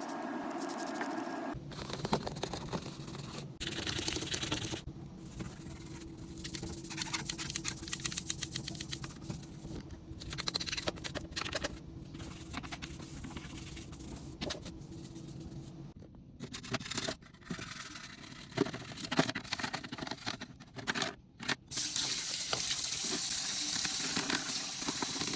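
Hand-cleaning sounds from a washing machine's detergent drawer, in short cut-together clips: spraying and scrubbing, with a steady hissing rush near the end.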